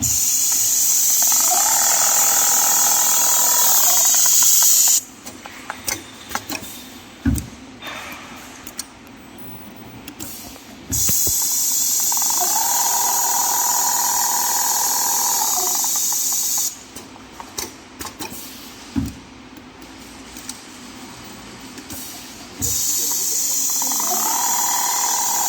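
Industrial rotary-head leather sewing machine stitching in three runs of a few seconds each. In each run its motor whine rises, holds and falls, with a loud steady hiss. Clicks and knocks sound in the pauses between runs.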